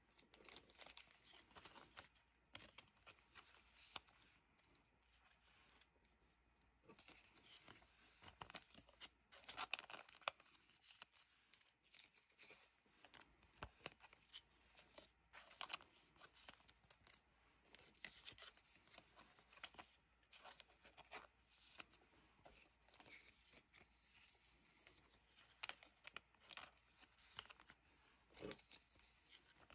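Faint crinkling and rustling of thin clear plastic card sleeves as trading cards are slid into them one at a time, with irregular small clicks and taps of card stock.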